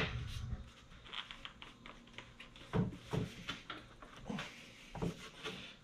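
Hard plastic clicking and tapping as a blower tube is pushed and twisted onto a Worx WG520 electric leaf blower's outlet: scattered light clicks, a few a second in short clusters.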